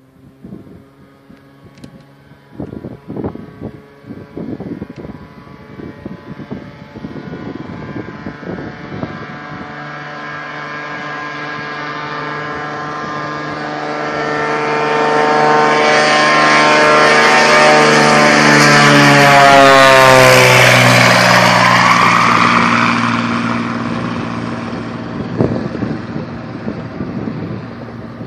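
Cessna 206 floatplane's six-cylinder piston engine and propeller at full takeoff power, growing steadily louder as it runs along the water toward the listener. About twenty seconds in, as it passes close by, the pitch drops sharply, and the sound then fades as the plane climbs away.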